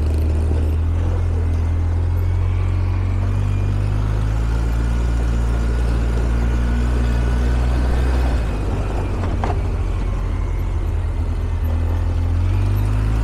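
ATV engine running steadily as it rides along a trail. The engine note drops about eight seconds in and picks up again near the end, with one short knock in between.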